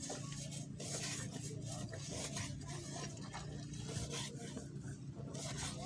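Knife slicing soft white seafood flesh on a wooden board: repeated rasping, scraping cuts of the blade through the flesh and against the wood, over a steady low background rumble.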